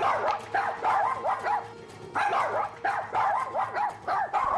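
Bichon Frise dogs barking aggressively at people, in rapid strings of sharp, high yaps with short pauses between the bursts.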